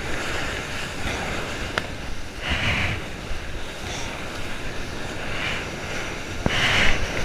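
Ocean swell sloshing and washing around a camera held at the water's surface, with two louder rushes of whitewater about two and a half and six and a half seconds in, and a few sharp taps of water against the housing.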